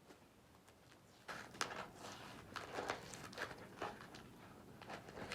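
Packaging being handled and torn at by hand: after about a second of quiet, a continuing run of crackles, scrapes and small clicks as the taped package is worked open.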